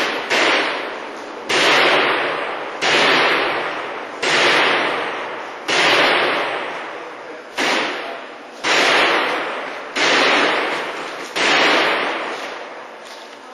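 Sledgehammer blows on the glass of a smash-resistant security display case, about ten in all, roughly one every second and a half; each strike is a sharp crack followed by a long ringing decay, and the glass does not break.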